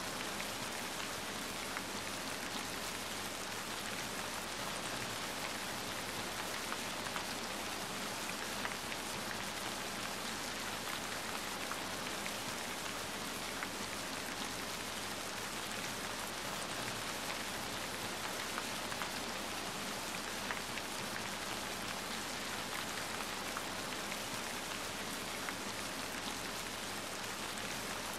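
Steady rain falling, mixed with the light scattered crackle of a wood fire burning in a fireplace.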